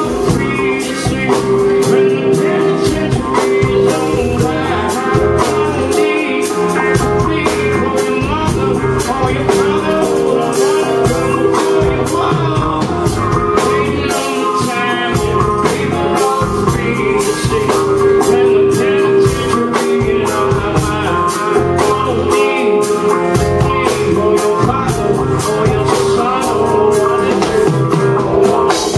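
Live full band playing a loud rock-blues song, with electric guitar and drum kit under a male lead vocal, heard from the audience in a club.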